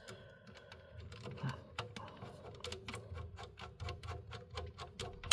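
Precision hex screwdriver driving a tiny screw into the hot-end housing of a 3D printer's print head: a run of light clicks, about three or four a second, growing louder toward the end.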